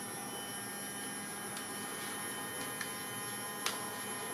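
Fujifilm Instax Square SQ6 instant camera's film-eject mechanism buzzing steadily after the shutter release is pressed, with a few light clicks over it. It runs this long only because the camera is empty and is searching for film to eject.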